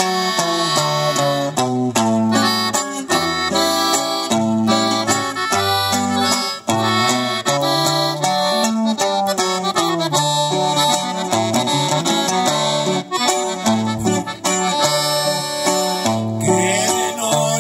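Live norteño-style instrumental music: an accordion playing the melody over a strummed guitar, with low bass notes stepping in rhythm beneath, and no singing.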